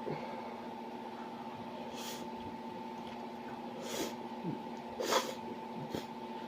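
A few short, sharp sniffs and breaths, about four, the one near the end the loudest, from a person eating spicy instant noodles, over a steady electrical hum.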